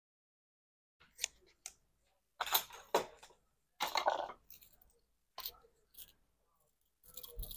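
Scissors snipping through thick super-bulky yarn, two cuts about a second and a half apart, among short clicks and rustles of the yarn and scissors being handled.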